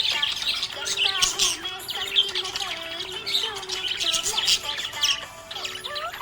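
Budgerigars chirping and warbling in a continuous, busy stream of quick chirps, over background music carrying a slow gliding melody.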